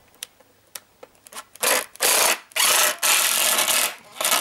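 Cordless impact driver with a 7mm socket running in about five short bursts, starting about a second and a half in, as it drives down the screw of a large Jubilee clip (hose clamp) to tighten the band.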